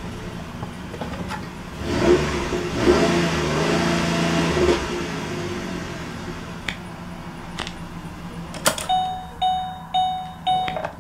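2007 Ford Explorer Sport Trac's 4.0-litre SOHC V6 idling, heard from inside the cab, revved about two seconds in, held for about three seconds, then dropped back to idle. A few clicks follow, and near the end a dashboard warning chime repeats about twice a second while the driver's door is open.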